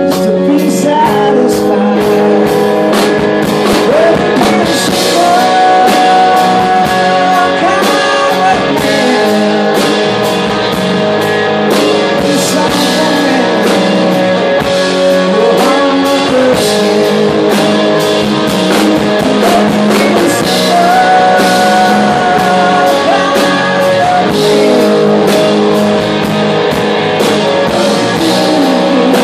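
Live rock band playing: a Telecaster-style electric guitar strummed over drums, with a male voice singing.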